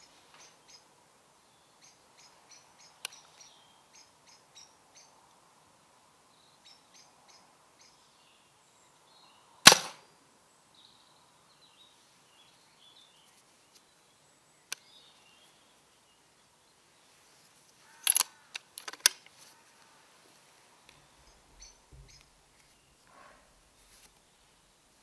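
Air rifle shots at rats: one sharp crack about ten seconds in, then another crack and a second sharp knock about a second apart near eighteen seconds. Faint high chirps and a low steady hum sit underneath.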